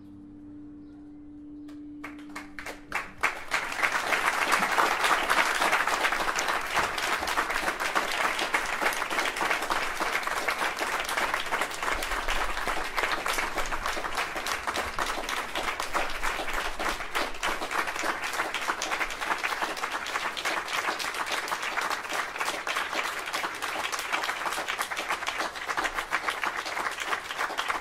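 A last piano chord dies away. About two seconds in, an audience starts applauding, first a few scattered claps, then dense, steady clapping that carries on throughout.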